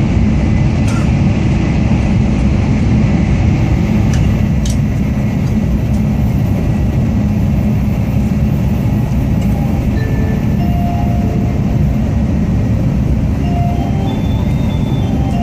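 Tokaido Shinkansen train running at speed, heard from inside the passenger cabin: a steady, loud, deep rumble of wheels and running gear.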